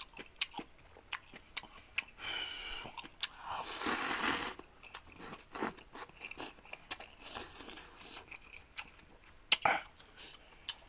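A person eating spicy ramen noodles: a short slurp, then a longer, louder slurp about four seconds in, with wet chewing clicks and lip smacks throughout. A single sharp click near the end is the loudest sound.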